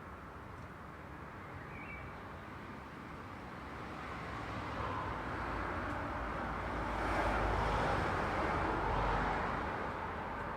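Road traffic: a steady hiss of passing vehicles, with one vehicle drawing nearer, loudest about two-thirds of the way through with a low rumble, then fading as it passes.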